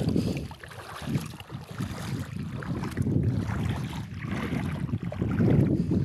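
Footsteps wading through shallow water, a splash and swish with each step about once a second, with wind buffeting the microphone.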